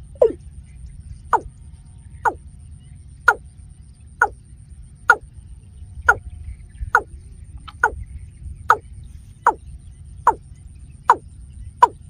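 Watercock calling: a steady series of short notes, each sliding down in pitch, about one a second.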